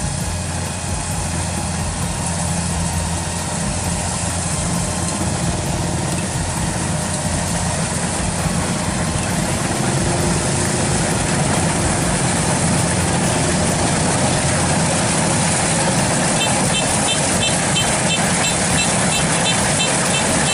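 Heavy farm machine's engine running steadily, getting a little louder about halfway through, with a rapid high-pitched ticking joining in near the end.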